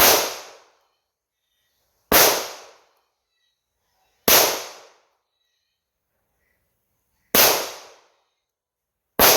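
Five single shots from a 9mm semi-compact pistol (Palmetto State Armory Dagger slide on a 3D-printed lower), fired slowly about two seconds apart with a longer pause before the fourth. Each shot has a short echoing tail.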